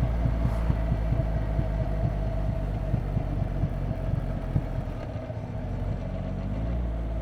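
Triumph Rocket 3 R Storm's 2.5-litre inline three-cylinder engine running at low revs through its stock exhaust: a steady, pulsing low throb that eases slightly about five seconds in.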